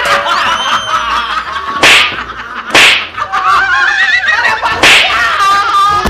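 Three loud, sharp slaps with a swishy crack, two in quick succession about two seconds in and a third later, amid laughter.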